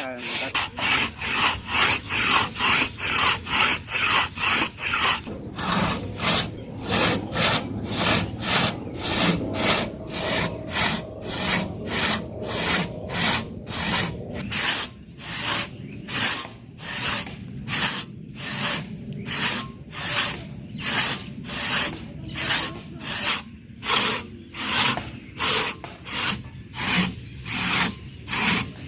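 Hand saw cutting through a tree's wood in steady back-and-forth strokes, about two strokes a second.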